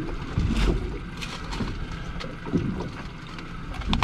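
Sounds aboard a fishing boat on open water: a steady low rumble with wind on the microphone and water noise, broken by a few brief sharp sounds.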